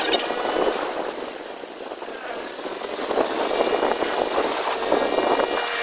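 Motorcycle engine running on the move, with road noise and a thin, steady high tone above it.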